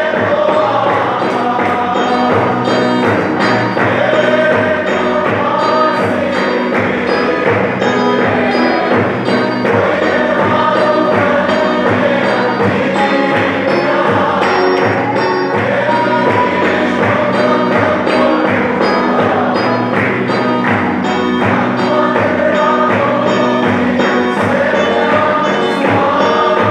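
A congregation singing a lively hymn together, many voices at once, over a steady, even drum beat.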